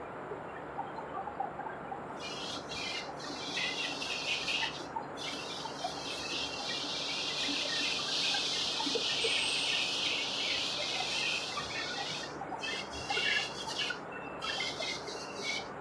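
Metal-cutting machine tool running in a machine shop, with a high hiss that swells over several seconds and breaks off briefly now and then.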